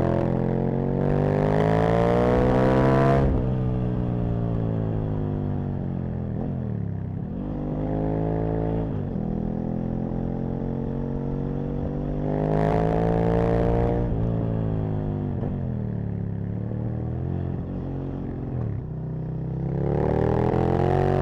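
Aprilia RSV Mille's 998 cc V-twin engine pulling hard in repeated bursts of acceleration. The pitch climbs, cuts off sharply about three seconds in, then falls away on the overrun before rising again several times. Wind rush builds on the microphone with each surge.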